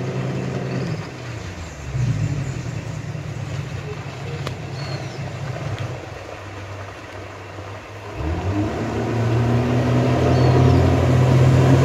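Outboard motor of a long wooden dugout boat running, steady at first, then rising in pitch and growing louder from about eight seconds in as the boat comes near.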